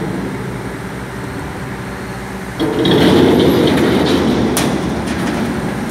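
A crane's engine running steadily as a large steel silo is tipped over; about two and a half seconds in, a loud grinding rumble of the toppling silo comes in for a couple of seconds, with a sharp metallic click near its end.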